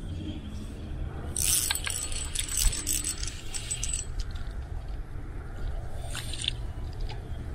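Metallic whirring and clicking from a spinning reel as a hooked panfish is cranked in. The longest spell is about a second and a half in and lasts a few seconds, with a shorter one near the end. Wind rumbles on the microphone throughout.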